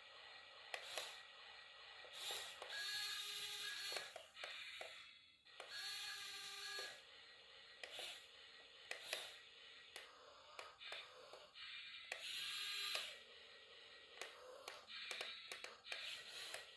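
Small electric gear motors of a radio-controlled toy model whining in short runs at a steady pitch, amid many light plastic clicks and knocks.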